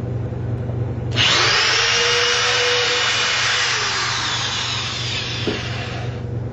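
Corded electric drill boring into the wooden top of a box. It starts about a second in, runs for about five seconds with its whine slowly sagging in pitch, and stops near the end.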